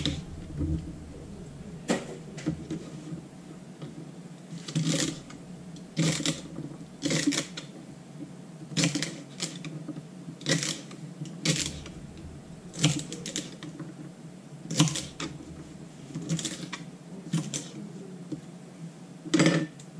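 Kitchen knife chopping celery on a plastic cutting board: sharp knocks of the blade on the board, singly or in small clusters about every second or two, over a steady low hum.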